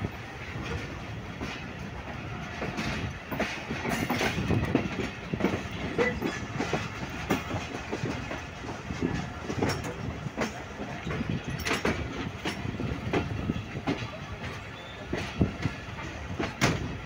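Moving passenger train heard from the open door of a coach: a steady running rumble with irregular wheel knocks and clicks, clickety-clack over the track.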